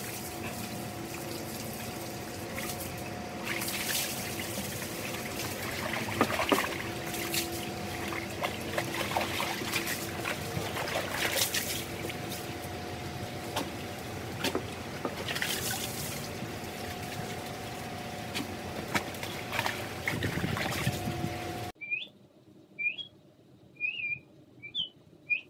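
Water trickling and sloshing in a plastic tub holding a husky, over a faint steady hum. About four seconds before the end it cuts off and gives way to a handful of short, high, rising squeaks.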